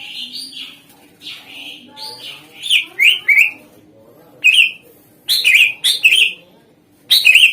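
Greater green leafbird (cucak ijo) singing: softer warbled notes at first, then loud, harsh bursts of quick chirps about a second apart.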